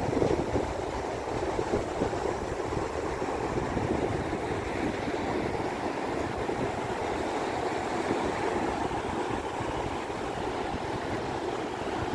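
Steady wash of sea surf breaking on a flat sandy shore, with wind rumbling on the microphone.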